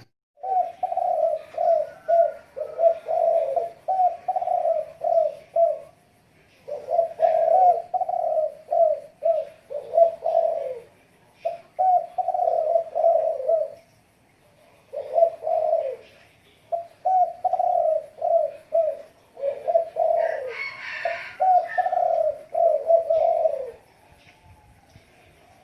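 Spotted dove cooing: about ten phrases of quick, repeated low coos, separated by short pauses, which stop near the end. Faint chirps of small birds sound in the background.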